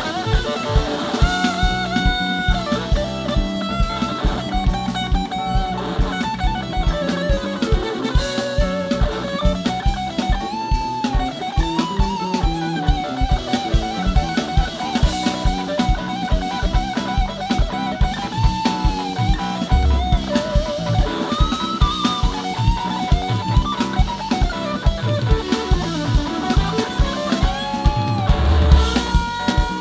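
Live rock band playing an instrumental passage: an electric guitar lead line with bent, sliding notes over a steady drum-kit beat and bass.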